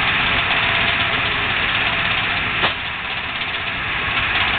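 An engine running steadily, with a single sharp click about two and a half seconds in.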